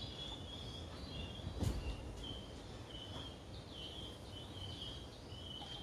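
Faint background chirping: short, high notes repeated at uneven intervals. A single knock about one and a half seconds in.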